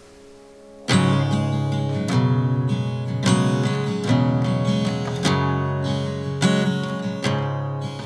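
Background music of strummed acoustic guitar chords, coming in suddenly about a second in after faint hiss.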